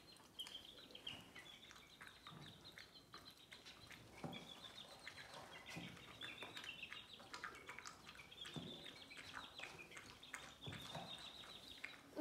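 Faint, rapid high-pitched chirping of small birds, with scattered light clicks.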